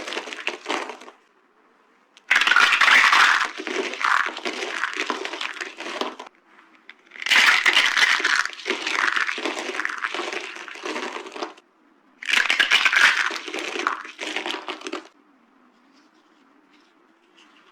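Dry green soap being crushed, crunching and crackling in bursts: a short one at the start, then three longer bursts of several seconds each, with short pauses between them and a quiet stretch near the end.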